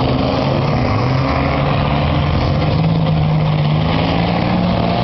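Several demolition derby car engines running and revving together, their pitches shifting and overlapping.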